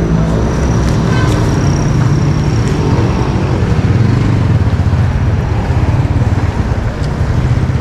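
Car engine running with road noise while driving, a steady low hum.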